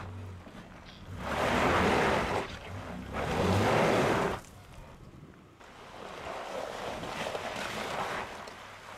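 Mitsubishi Pajero 4 revving and spinning its wheels on a loose-stone climb, with two loud surges of engine and gravel noise about a second each, then a quieter stretch. The wheelspin comes from having only a centre diff lock and no rear cross-axle lock, so torque goes to one wheel per axle.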